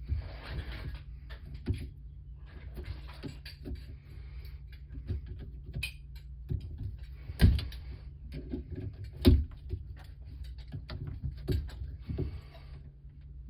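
Hands-on work noise: scattered knocks, clicks and rustling or scraping as parts and tools are handled. There are two louder thumps, about seven and a half and nine seconds in, over a steady low hum.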